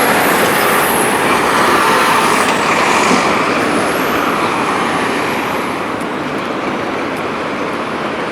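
Steady road traffic noise, with a thin high squeal that rises and falls during the first several seconds.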